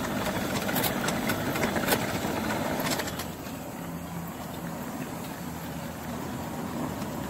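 Electric wheelchair rolling over paving stones: wheels and frame rattle over the joints and the drive motors run, with no grinding from the reduction gearbox. Rattling and louder for about the first three seconds, then quieter and steadier as the chair moves off.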